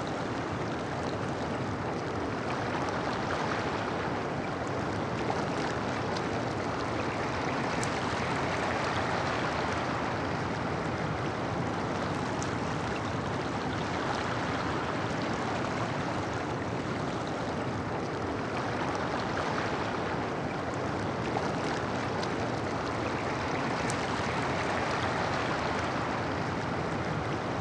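Ocean surf breaking on a reef: a steady wash of waves that swells and eases gently every few seconds.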